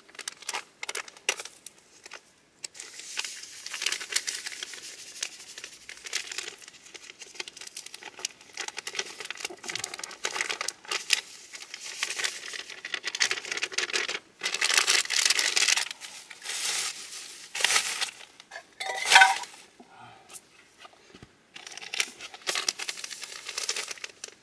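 Plastic pudding-mix packets crinkling and tearing as they are opened and handled, in irregular bursts, with one louder burst a little past the middle.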